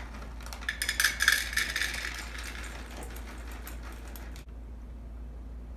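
Chocolate chips pouring from a bag into a small metal measuring cup, a dense rattle of many small hard pieces striking metal. It is densest from about half a second to two and a half seconds in, thins out, and cuts off suddenly after about four and a half seconds.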